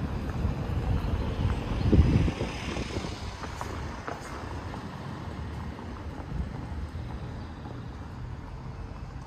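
A motor vehicle passing by, loudest about two seconds in, then fading away.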